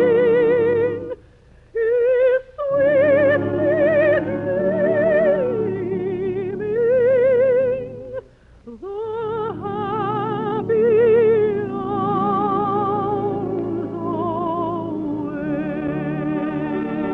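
Operatic soprano singing long, slow phrases with wide vibrato, with an orchestra behind her. The phrases break off briefly twice, about a second in and about eight seconds in.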